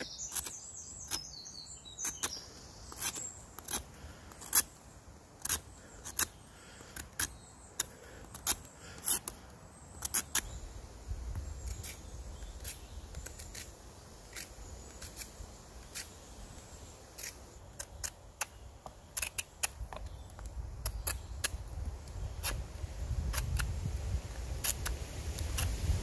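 Knife blade scraping and shaving the wet bark off birch logs in quick, irregular strokes, a few every second, stripping the wet outer layer to reach drier wood for the fire. A low rumble on the microphone builds in the second half.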